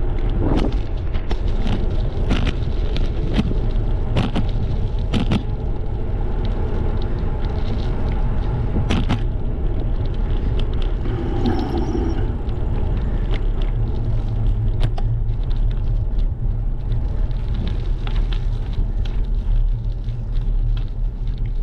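Wind rumbling on an action camera's microphone during a bicycle ride on a paved path, with tyre noise. Sharp clicks and rattles from the bike over bumps in the asphalt come often in the first several seconds and more sparsely later.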